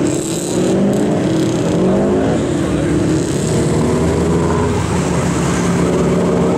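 Subaru Impreza rally cars' flat-four engines revving hard as the cars accelerate around a tight turn. The pitch climbs, falls back as a gear is changed, and climbs again near the end.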